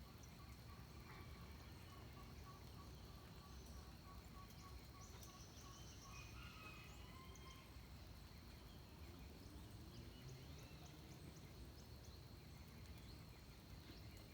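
Faint dawn forest ambience: a steady high-pitched insect drone, a short note repeated about three times a second through the first half, and scattered bird chirps, over a low rumble.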